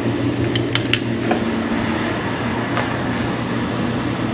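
Steady low machine hum, with a few light sharp clicks about half a second to a second in, like small plastic parts being handled.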